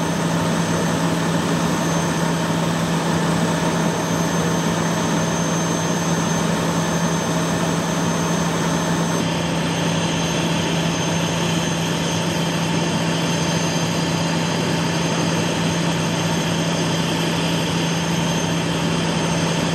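Fire engine idling: a steady engine drone with a constant low hum that does not rise or fall.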